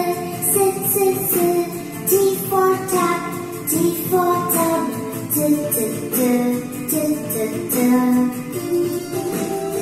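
Children's alphabet phonics song played from a television: a sung melody ('S for sun and S for sunflower', then 'T for tap, T for tub') over an instrumental backing with a steady beat.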